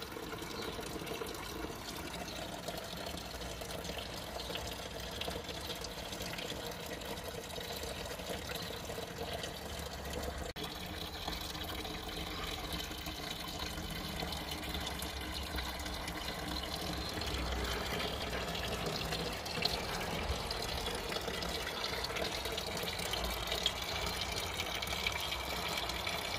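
Wooden wishing-well garden fountain running: a steady stream of water trickling from its tipped bucket spout into the basin below.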